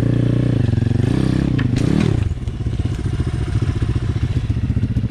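Small single-cylinder dirt bike engine running at low revs. It rises briefly in pitch about a second and a half in, with a couple of sharp clacks, then drops back to a steady, lower run.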